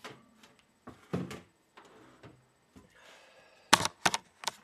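Oven door shutting after a baking tray goes in. Soft knocks and rustling come first, then a scrape, then a cluster of loud, sharp knocks near the end as the door closes.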